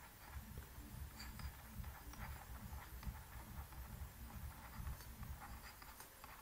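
Faint, irregular soft taps and scratches of a stylus writing on a tablet screen.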